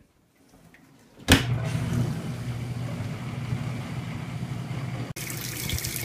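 Kenmore 18-inch portable dishwasher in its rinse cycle, starting suddenly about a second in: a steady motor hum under rushing water. Near the end, after a short break, the water it pumps out splashes brighter into the sink.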